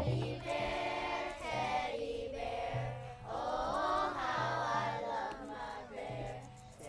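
A group of young girls singing together in unison, a chant-like hand-drum song with long held notes. No drum beats sound under the voices here.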